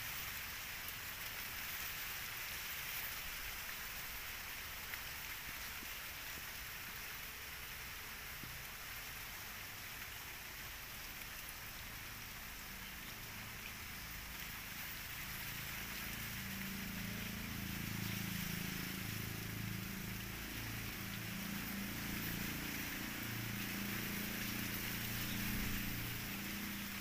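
Steady outdoor background hiss, with a low droning hum coming in about halfway through.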